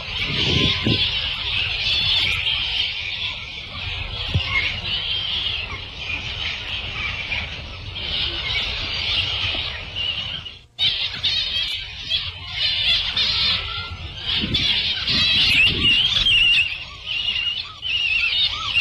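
Recorded jungle ambience from an amusement-park jungle cruise ride's sound-effects track: dense chirping and squawking of tropical birds, with a few lower animal calls. A short break about eleven seconds in, as if the track was edited there.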